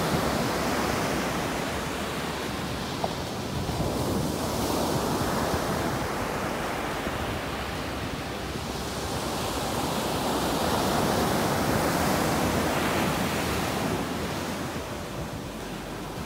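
Ocean surf breaking on a sandy beach: a steady rush that swells and eases as each set of waves comes in.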